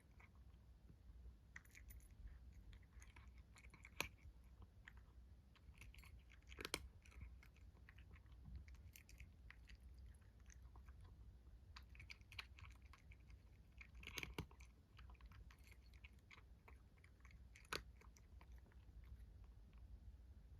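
A kitten chewing its food: quiet, irregular crunching and small clicks of its teeth, coming in scattered bursts, with a few sharper clicks standing out.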